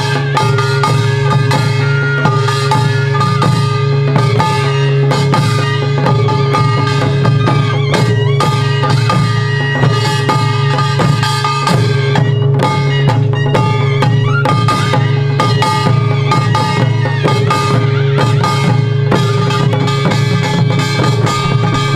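Korean traditional drum-dance music: buk barrel drums struck with sticks in a fast, dense rhythm, with a live accompanying ensemble and held melodic tones beneath.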